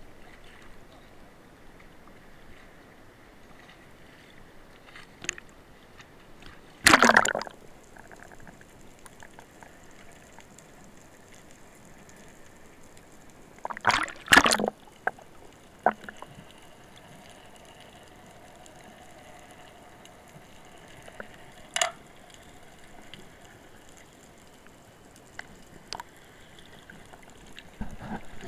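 Sea water sloshing and gurgling around a camera at the surface of choppy water. There are loud splashes about seven seconds in, twice in quick succession around fourteen seconds, and once more briefly near twenty-two seconds.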